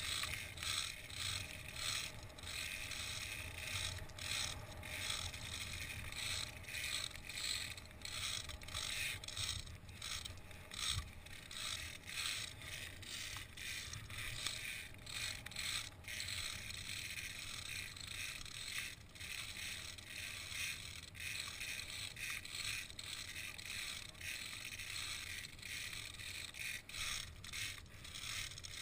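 Continuous irregular metallic rattling, clicking and scraping of via ferrata carabiners sliding along the steel safety cable and boots stepping on the metal grating of a suspension bridge.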